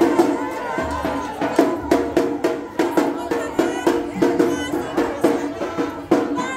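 Batucada samba percussion band playing a steady, driving rhythm on drums, with strong accented beats a little under a second apart, and crowd voices over it.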